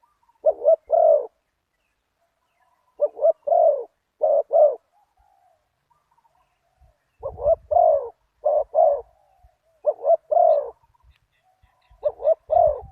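Spotted doves cooing: loud phrases of two or three deep coos repeated every few seconds, with fainter answering coos in the gaps between them.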